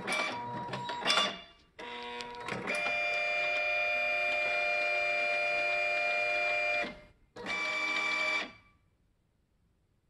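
Epson Stylus Color 640 inkjet printer's stepper motors whining through a series of mechanical moves: a short run, a long steady whine from about two to seven seconds in, and a last short run that stops about eight and a half seconds in.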